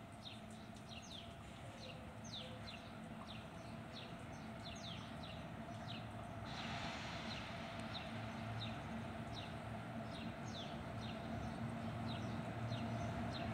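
Small birds chirping over and over in short, downward-sliding notes, over the steady hum of an approaching WAG-7 electric locomotive that slowly grows louder. A hiss joins in about six and a half seconds in.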